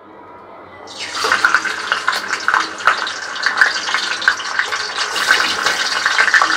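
Raw pieces of desi chicken sizzling and spattering in hot oil in a kadai. The dense crackle starts about a second in, as the first piece goes into the oil, and then keeps up.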